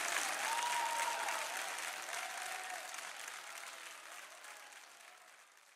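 A crowd applauding, with a few voices calling out over the clapping, fading out steadily.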